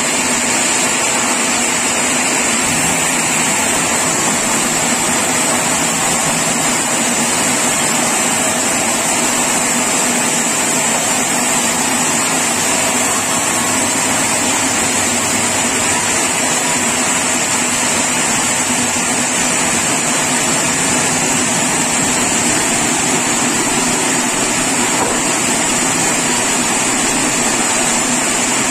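Sawmill saw running steadily, with a constant high whine over a low machine hum.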